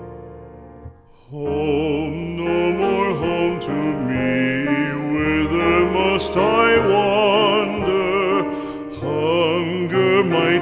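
Background music: a piano chord dies away, and then, about a second and a half in, a singer comes in with strong vibrato over piano accompaniment.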